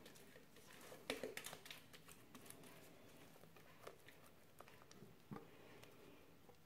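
Faint scrapes and soft taps of a spatula working thick chocolate cake batter out of a glass blender jug, a cluster about a second in and a couple of single ones later, over near silence.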